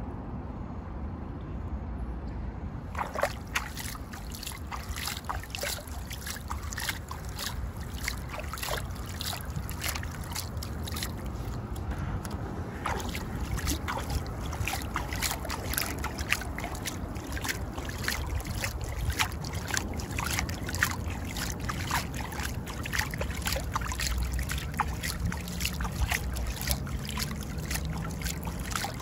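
Shallow seawater lapping and sloshing against a concrete seawall, with a steady stream of small splashes and trickling clicks over a low rumble. The splashing starts about three seconds in.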